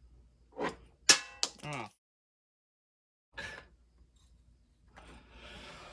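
Two sharp clicks about a third of a second apart, with brief murmured vocal sounds around them, then a stretch of dead silence that breaks off the sound partway through.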